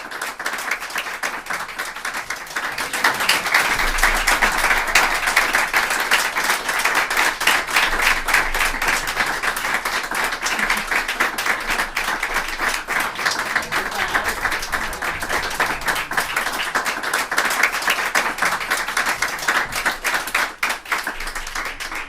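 Applause from a group of people clapping, a dense patter of many hands, swelling louder about three seconds in and then holding steady.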